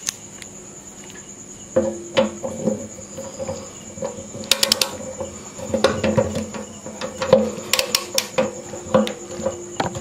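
A hand ratchet clicking in short runs, with knocks of metal on metal, as it tightens the screws of a motorcycle fuel-tank lock onto the tank. A cricket chirps on in the background as a steady high tone.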